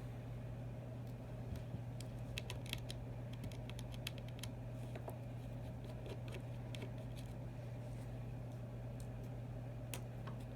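Small metal tools clicking and tapping against the internal parts of an iPhone 6 being taken apart: irregular light clicks, several a second at times, over a steady low hum.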